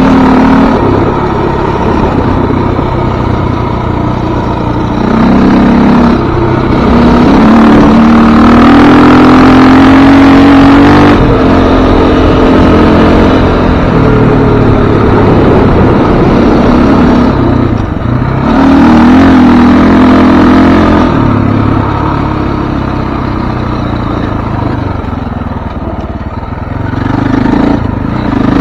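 Dirt bike engine running under way, its pitch climbing and dropping several times as the throttle opens and closes, with three stronger surges of revving, the longest near the first third.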